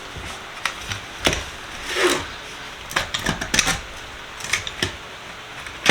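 Metal sockets of a vintage Tomahawk socket set clicking and clanking against their tray as a stuck socket is forced to slide off, with a short scrape about two seconds in.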